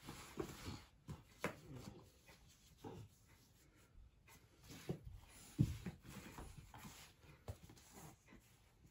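Faint, scattered soft knocks and rustles of a toddler handling foam shapes and plastic toys on carpet, the loudest a low thump a little past halfway, with a few short small vocal sounds.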